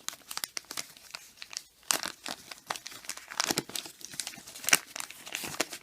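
Crinkling and tearing of a trading-card packet wrapper being ripped open by hand, in a quick, irregular run of sharp crackles.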